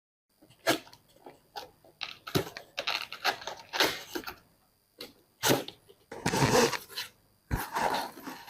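Cardboard shipping box and its packing being handled and opened: a string of irregular rustles, scrapes and tearing noises, the longest about two thirds of the way in.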